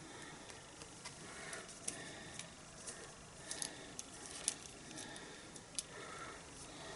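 Faint handling noises of paper crafting: small sharp clicks and taps, scattered irregularly, the loudest about four and a half seconds in, as adhesive pearl embellishments are picked off their sheet and pressed onto a card.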